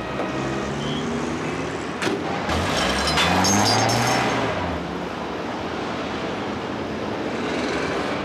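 Street traffic with vehicle engines running. One engine revs up and back down about three seconds in.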